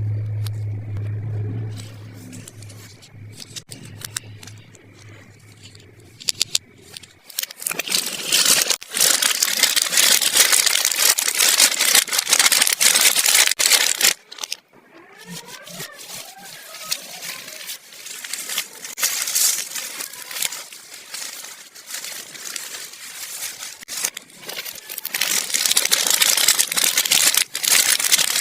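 Plastic toy packaging being handled and unwrapped: crinkling and rustling that turns loud about seven seconds in and goes on with a short pause midway, after quieter handling over a low hum at the start.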